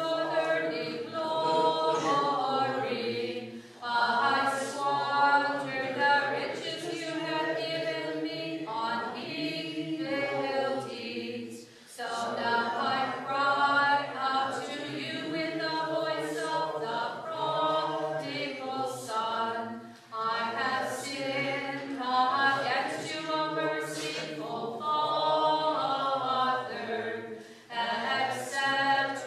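Group of voices singing Byzantine liturgical chant a cappella, in long phrases separated by brief pauses about every eight seconds.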